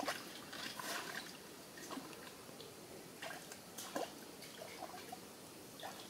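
Bare feet splashing through a shallow muddy stream, irregular steps about once a second over a faint trickle of running water.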